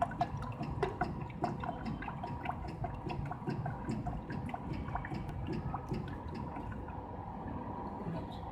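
Smoothie vending machine dispensing liquid: quick irregular drips and splashes that thin out after about six seconds, over the machine's steady hum.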